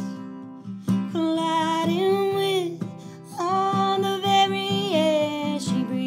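A woman singing live over a strummed acoustic guitar, holding two long notes with a short break between them.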